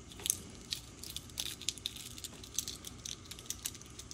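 Shell of a hard-boiled farm egg being peeled with a spoon: quiet, irregular crackling and crunching as the spoon works between egg and shell and pieces of shell break away.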